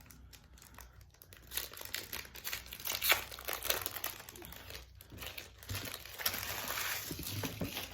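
Foil booster pack being torn open and crinkled by hand, with irregular crackling from about a second and a half in and a longer stretch of crinkling near the end.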